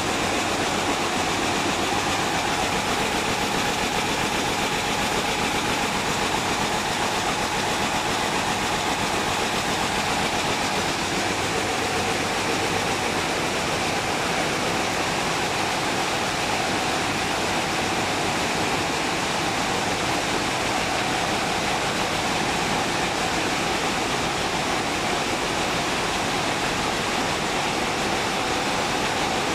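Many Picanol weaving looms running at once in a weaving hall: a loud, steady machine noise that never lets up.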